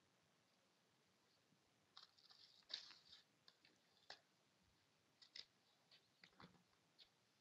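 A dog tearing and chewing a paper flyer: faint crinkling, rustling and snapping paper in short scattered bursts, starting about two seconds in.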